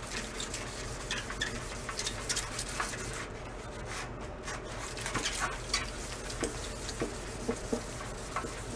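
Hand wet-sanding of a Jawa 350 motorcycle's painted steel fuel tank: short, irregular rubbing strokes of wet sandpaper cutting through black overpaint toward the red paint beneath, over a steady low hum.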